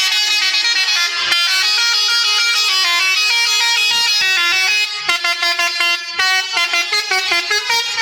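Indonesian 'telolet' multi-tone bus horn playing a melody of held notes that step up and down in pitch, switching about five seconds in to quick, short repeated toots.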